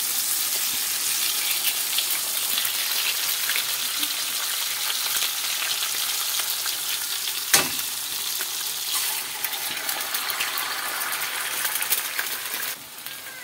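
Beef patty and eggs sizzling in hot olive oil in a stainless steel frying pan, with one sharp knock about seven and a half seconds in. The sizzle grows quieter near the end.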